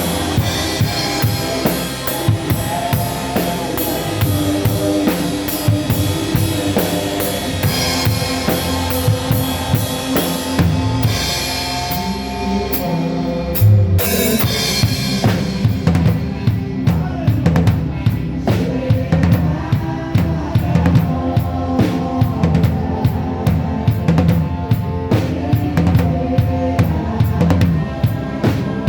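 Live drum kit keeping a steady beat with bass drum, snare and cymbals under a hymn played by the band, heard through a phone's microphone. About fourteen seconds in there is one especially loud hit, after which the cymbals thin out.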